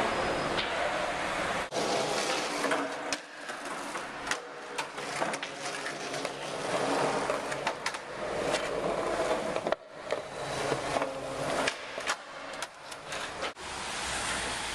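Skateboard wheels rolling over a concrete floor, a steady grinding rumble broken by many sharp clacks and clicks.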